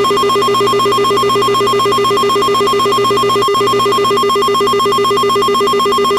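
Loud electronic emergency-alert attention tone: a low and a higher pitch sounding together, pulsing rapidly and evenly without a break.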